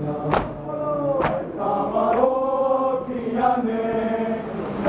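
Men's voices chanting a mourning lament (nauha) together, with sharp slaps of ritual chest-beating (matam) about once a second; the slaps are loud for the first two seconds, then fainter under the chanting.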